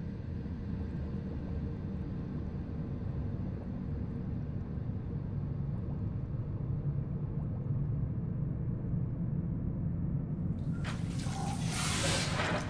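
A steady low rumble, then about eleven seconds in a loud splash and rush of water as a person sits up out of a full bathtub, water streaming off him.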